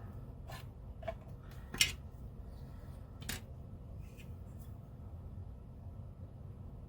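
A few small, sharp clicks and taps as a model panel is handled and fitted into place, the loudest about two seconds in, over a low steady hum.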